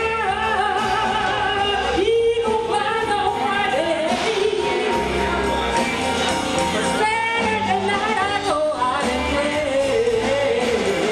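Music with a singer holding long, wavering notes over a bass line.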